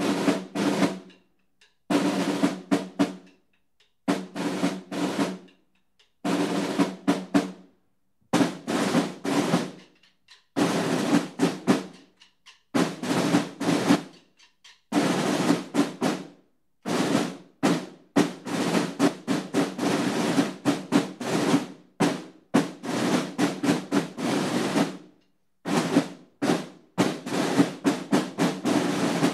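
Buekorps marching snare drums playing a march beat with rolls, in short phrases broken by brief silences, running in longer stretches in the second half.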